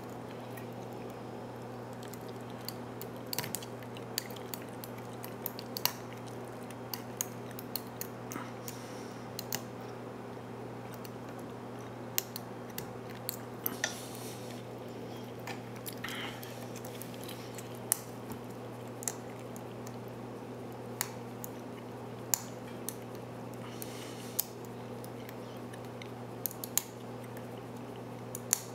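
Pin-tumbler padlock being single-pin picked: scattered small metallic clicks and ticks at irregular intervals as the pick lifts and sets serrated and spool pins under tension, with a steady low hum underneath.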